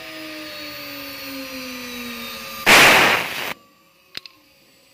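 STG6090 mini CNC router's spindle whining as it engraves a board, its pitch slowly falling. About three seconds in, a loud rushing burst of under a second, then the sound drops away suddenly to a faint hum with a single click.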